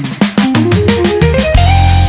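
Background music: guitar and drums with a steady beat, a run of notes climbing to a held note near the end.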